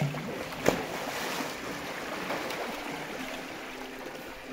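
Water sloshing and churning as a South American sea lion swims and surfaces along the pool's edge, with one sharp splash about a second in.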